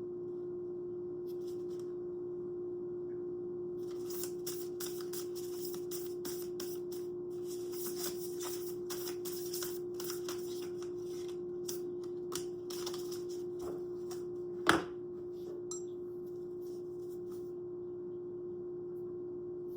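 Tarot cards being shuffled and handled, a dense run of rustling and clicking, then a sharp tap at about 15 s as a card is set down. A steady single-pitched tone hums underneath.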